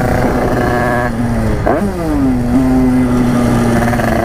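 Tuned two-stroke moped engine running at high revs under throttle. About one and a half seconds in, the revs drop and snap back up, as at a gear change, then settle into a steady pitch.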